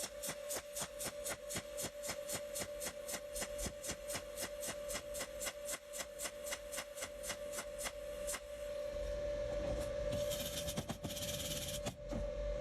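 TIG welding arc pulsing evenly about five times a second over a steady whine, then settling into a steadier hiss about eight seconds in, with two short bursts of higher hiss near the end.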